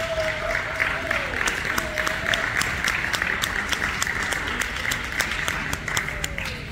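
An audience applauding steadily with many hands clapping, for a dog as she is gaited around the show ring. In about the first two seconds one person holds a long cheer over the clapping.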